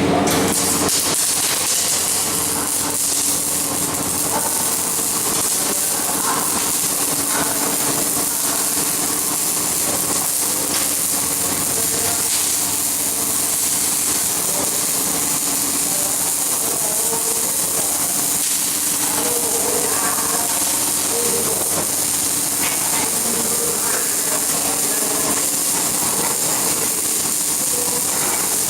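Steady hissing crackle of an electric welding arc, burning continuously, with a steady low hum underneath.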